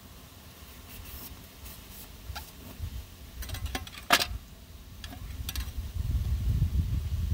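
Scattered light clicks and scrapes of hands handling parts, with one sharp click about four seconds in and a low rumbling handling noise near the end.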